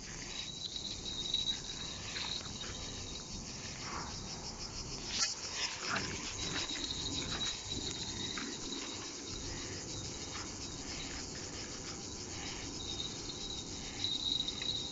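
A high, steady insect chorus that thins out for a few seconds and comes back, with a few faint clicks and knocks about five to six seconds in.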